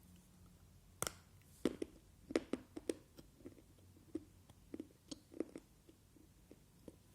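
Close-up crunching and chewing of raw multani mitti (fuller's earth clay) chunks: a sharp crack about a second in, then a run of crisp crunches and softer chewing.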